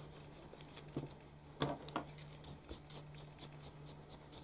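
Faint rustling and light scratchy ticks of a hand moving over sketchbook paper, with a couple of soft knocks about one and a half to two seconds in.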